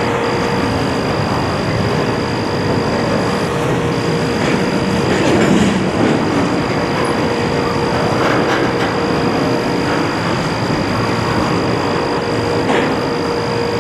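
Freight train's intermodal stack cars rolling past, a steady rumble of wheels on rail with a thin high whine running through it and a single clank near the end.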